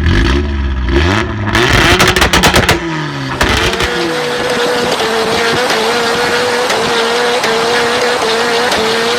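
Car engine revving hard, its pitch rising and dropping several times in the first three seconds, then running at a steady, held pitch.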